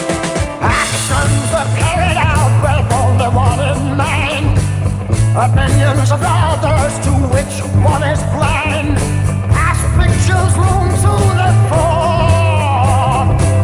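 1960s psychedelic rock music without sung words: a band with a pulsing bass line and drums, and a wavering lead melody above them.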